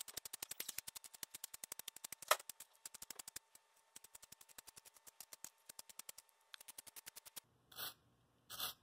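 Wooden pencil being twisted in a Kutsuwa T'GAAL angle-adjustable handheld sharpener, set to level two: a fast, even run of crisp clicks as the blade shaves the wood. The clicks stop about seven seconds in, followed by two short scrapes.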